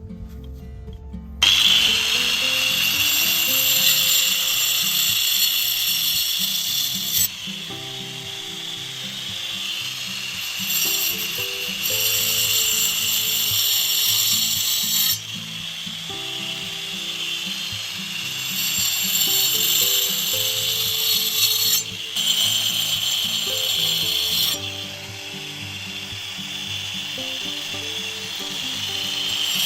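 Background music under loud, harsh tool noise from cutting into bamboo, which comes in several stretches a few seconds long that start and stop abruptly.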